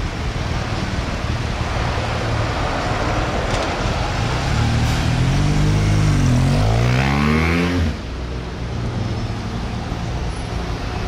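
Motorcade vehicles passing on a city road: steady engine and tyre noise. About halfway through, one engine's pitch dips and then climbs sharply as it accelerates, cutting off suddenly about eight seconds in.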